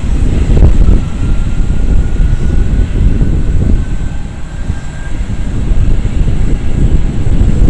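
Boeing 757-200 twinjet's engines at takeoff power: a loud, deep rumble with a faint whine that rises slowly in pitch.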